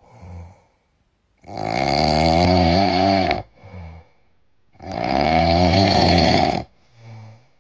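Small short-haired dog asleep on its back, snoring: two long snores of about two seconds each, with short, quieter breaths between them.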